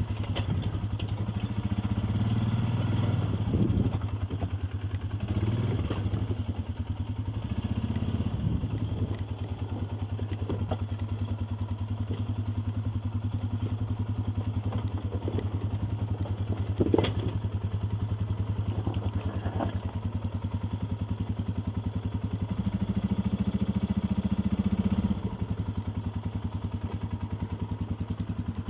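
ATV engine running at low speed, opened up a little three times, the longest near the end. Scattered clattering and knocks run over it, with a sharp knock a little past the middle, as the machine crawls over rough ground.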